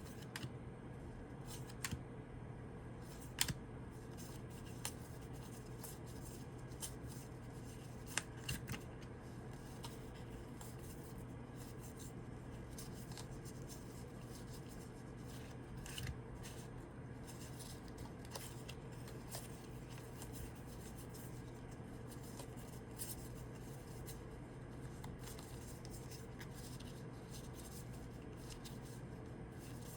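Tarot cards being handled and turned over one at a time: faint, irregular clicks and snaps of card stock, a few sharper ones in the first nine seconds, over a steady low hum.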